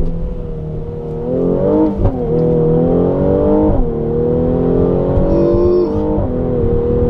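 Twin-turbocharged V6 of a Mercedes-AMG GLC43, heard from inside the cabin, accelerating hard. Its note climbs, then drops sharply three times, about two, four and six seconds in, as the automatic gearbox upshifts.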